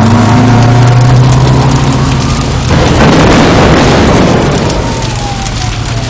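Chemical fertilizer plant explosion heard on news footage: a steady low hum, then a sudden loud rumbling roar a little under three seconds in that slowly fades. A thin siren-like wail slides downward near the end.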